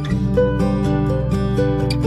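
Background music with a plucked acoustic guitar.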